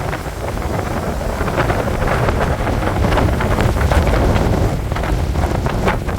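Storm-force wind gusting hard, buffeting the microphone with a heavy rumble under a constant rushing hiss.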